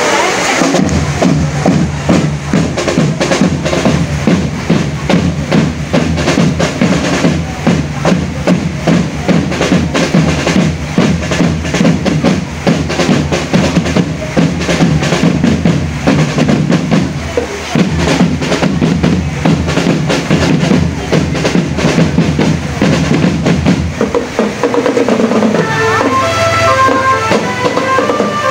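Marching drum band playing, with a dense stream of fast drum strokes and rolls over bass drums. A bright melodic line of higher notes joins near the end.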